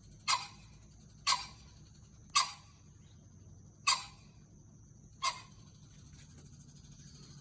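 Green pheasant calling: five short, sharp calls about a second or so apart, each dying away quickly.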